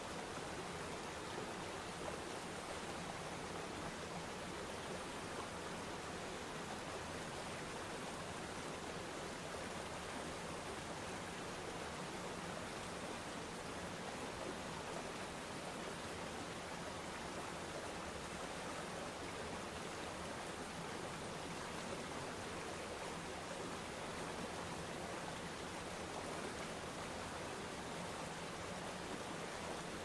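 Waterfall and shallow river rapids: a steady, even rush of falling and flowing water.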